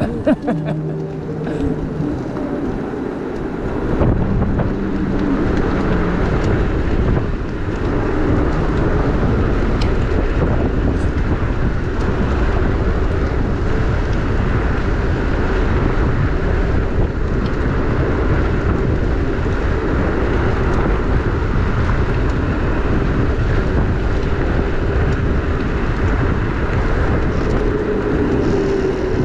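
Wind rushing over an action camera's microphone while riding an electric moped, with tyre and road noise underneath. The rush picks up about four seconds in and then holds steady.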